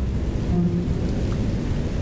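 Steady low rumbling like thunder, with a grainy patter like rain over it.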